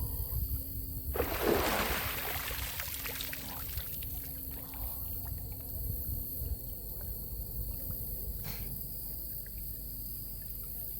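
A single splash of water about a second in, fading over a couple of seconds, over a steady low rumble.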